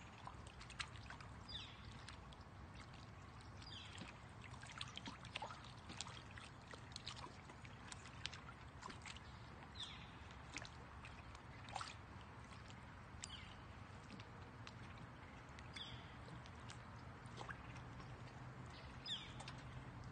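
Faint sloshing and small splashes of shallow lake water around a wading dog and catfish churning at the surface, with a bird chirping briefly every few seconds.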